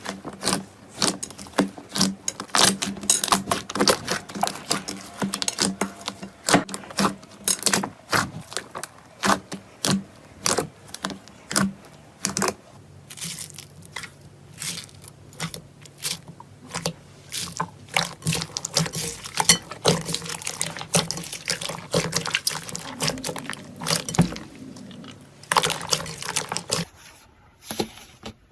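Slime being squeezed and kneaded by hand, giving irregular sticky pops and crackling clicks throughout.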